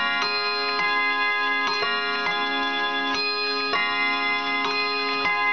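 Kieninger wall clock chiming the hour: struck chime notes ring one after another, a new one about every half second to second, each sustaining and overlapping the next, over the clock's ticking.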